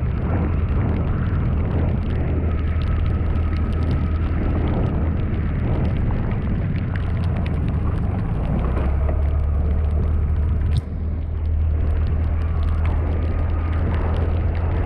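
Steady rumble and road noise of a vehicle in motion, with a brief break about eleven seconds in.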